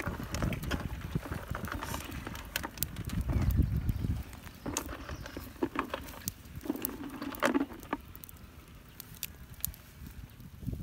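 Irregular clicks and clacks of freshwater clam shells being placed, knocked together and shifted on a wire grill over charcoal.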